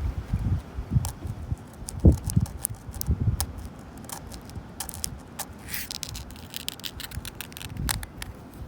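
Long natural fingernails scratching and clicking on a wooden bench, a rapid run of sharp nail ticks and scrapes, densest in the second half. Wind buffets the microphone with low rumbles, strongest in the first few seconds, with one loud thump about two seconds in.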